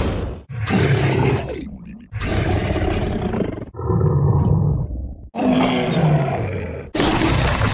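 Darkzilla monster roar sound effects: about five separate roars of roughly a second and a half each, one straight after another, each cut off abruptly.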